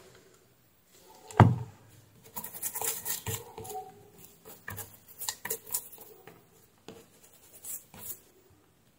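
Small metal and plastic parts of a USB-C cable plug being handled and worked on a workbench. There is a knock about a second and a half in, then several seconds of scraping and clicking.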